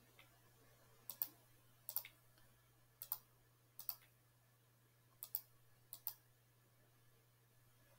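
Computer mouse clicking six times at uneven intervals, each click a quick pair of snaps, over a faint steady electrical hum.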